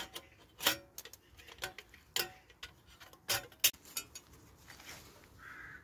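Metal panels of an Onetigris Rubicoid folding wood stove being slotted together: a series of sharp clinks and knocks, the loudest about three and a half seconds in.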